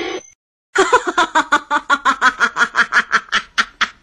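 A person laughing in a long run of quick "ha-ha" bursts, about six a second.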